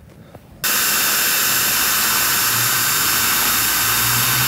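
Ryobi cordless drill running flat out with a small propeller on its chuck, used as a surface drive: a steady motor whine over the hiss and splash of the prop churning water into spray. It starts suddenly about half a second in and holds steady.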